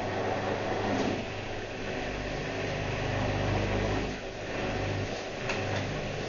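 Whirlpool washing machine running, its motor giving a steady hum as the drum turns. A deeper drone starts about two seconds in and then cuts in and out several times, with a couple of light clicks.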